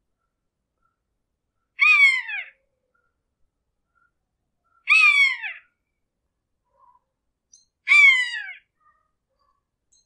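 A hawk screeching three times, about three seconds apart. Each call is a short, shrill scream that falls in pitch.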